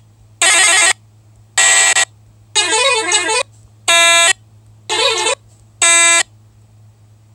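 Telolet-style multi-tone bus horn sounds played from a phone app through a sound system: six short blasts about a second apart, some holding a steady chord and one warbling up and down in pitch, over a steady low hum.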